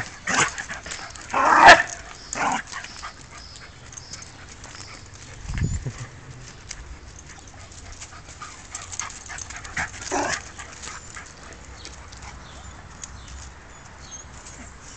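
Two dogs playing, giving short loud barks and yips in the first two seconds or so and again about ten seconds in, with quieter stretches between.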